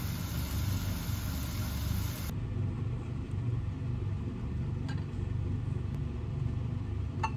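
Shiso-wrapped chicken patties sizzling in oil in a frying pan for the first two seconds or so, over a steady low rumble. After a cut the sizzle gives way to a quieter hum, with two light clicks of a silicone spatula against a glass container near the end.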